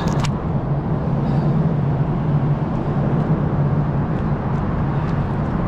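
A vehicle engine idling steadily, a constant low hum with a noisy rush over it. A short click comes right at the start.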